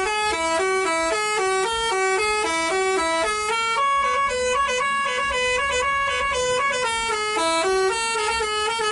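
Basuri telolet musical air horn on a bus, playing a quick melody of stepped horn notes without a break. About four seconds in, the tune moves to higher, longer-held notes, then drops back to the quick low run near the end.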